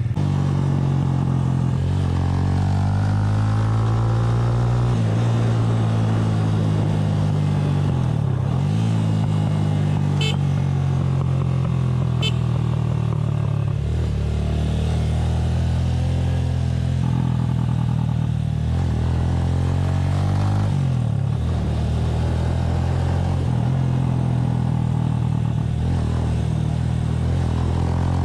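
Small motorcycle's engine running under way, its pitch rising and falling as the rider accelerates, shifts gears and eases off. Two brief high chirps come about ten and twelve seconds in.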